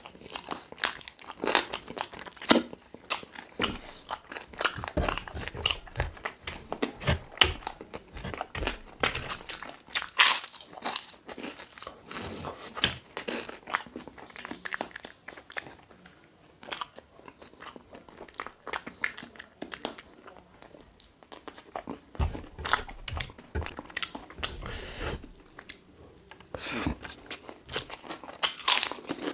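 Close-miked eating: chewing and biting with irregular crunching and smacking, the sounds of someone eating chicken drumsticks with rice.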